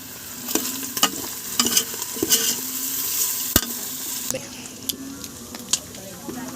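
Chicken, carrots and sliced hotdog sautéing in oil in a pressure cooker pot, with a steady sizzle, while a spoon stirs and clicks against the pot several times; one sharper knock about three and a half seconds in.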